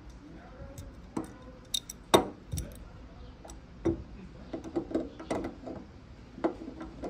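Metal tools clinking and clicking against a small screw and nut on a car's fuel filler cap hinge: a screwdriver and adjustable wrench being set onto the screw head and nut. The sharpest clink comes about two seconds in, followed by a run of small clicks as the wrench works the nut.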